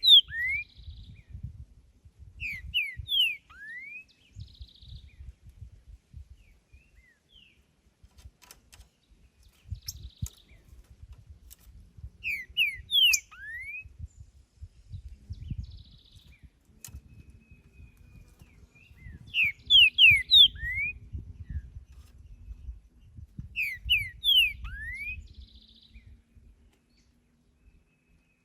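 Green-winged saltator (trinca-ferro) singing: short phrases of a few loud, clear whistled notes, repeated every few seconds with pauses between, over a low rumble.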